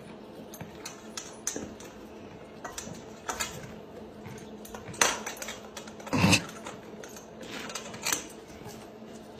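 Scattered light clicks and clattering knocks over a faint steady hum, with one duller, heavier knock about six seconds in.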